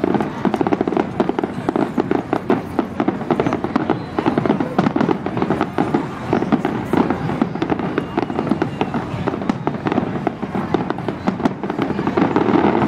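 Aerial fireworks display: shells bursting in a rapid, unbroken run of bangs and crackles.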